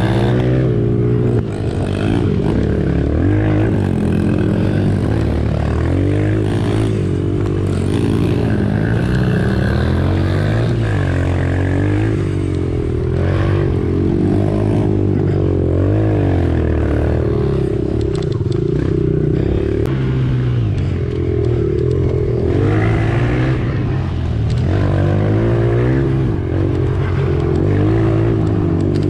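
Dirt bike engine running hard while being ridden, its pitch rising and falling again and again as the throttle is worked.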